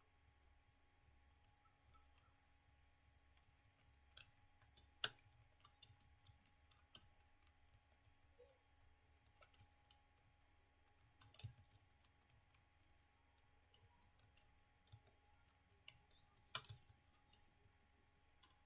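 Faint computer keyboard keystrokes in slow, deliberate typing: scattered soft key clicks, a second or more apart, with three louder key strikes spread across the stretch.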